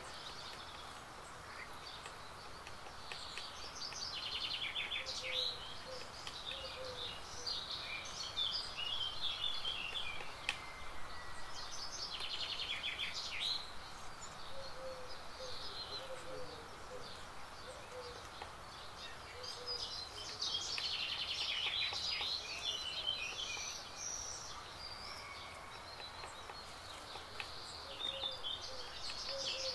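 Wild songbirds singing and calling in overlapping bursts of high, rapid phrases over steady background noise, with a faint low repeated call underneath at times.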